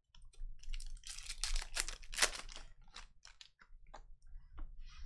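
Foil wrapper of a Panini Recon trading-card pack being torn open and crinkled, densest and loudest about two seconds in, followed by scattered clicks and rustles as the cards are handled.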